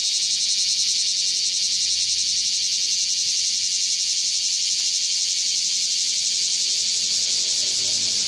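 Japanese cicadas (semi) singing: a loud, steady, high-pitched buzzing drone that runs on without a break.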